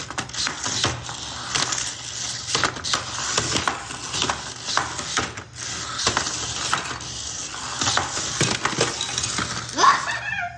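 Small toy battle robots knocking and clattering against each other and the arena in quick, irregular hits, ending in a short rising squeal.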